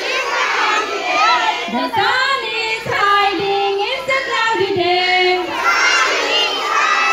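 A crowd of young children singing and shouting together in chorus, with a few notes held in the middle.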